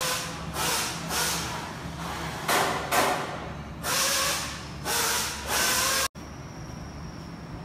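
Factory workshop noise: a run of about eight short hissing bursts over six seconds. The sound then cuts off abruptly and gives way to a steady, quieter hum with a faint high whine.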